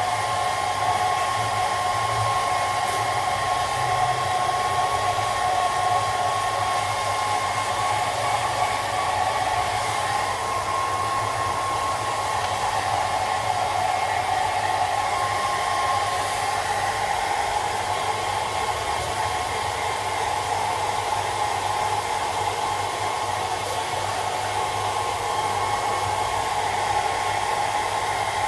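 Hair dryer running steadily: a constant whine over the rush of blown air.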